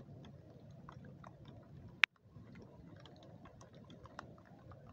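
Faint, irregular ticks and clicks over a low background hum, with one sharp, loud click about two seconds in.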